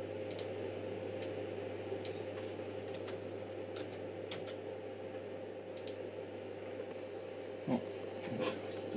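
Steady low hum of room and bench noise with faint, irregular ticks. Near the end come two short knocks as a hand works the oscilloscope's front-panel buttons and knobs.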